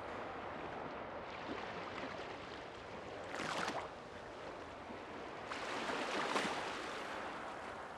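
Steady rushing water noise, with two louder swells: a short one about three and a half seconds in and a longer one around six seconds.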